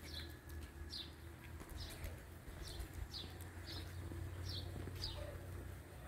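A small bird chirping faintly and repeatedly, short high falling chirps about once a second, over a low steady rumble.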